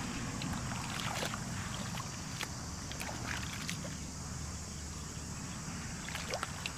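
Faint splashing and sloshing of bare feet and hands in shallow muddy water, a few short splashes here and there over a steady low rumble.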